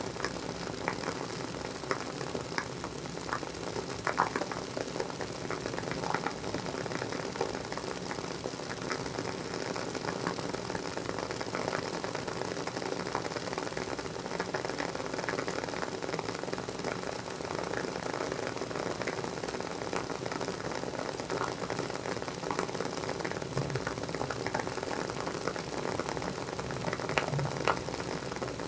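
Wooden wick of a WoodWick candle burning with a steady crackle, irregular small pops over a soft hiss, like a fireplace or campfire.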